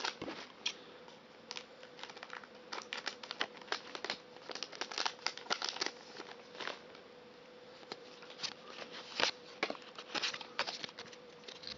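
Foil wrapper of a Pokémon card booster pack crinkling and being torn open, with cards handled: irregular small crackles throughout.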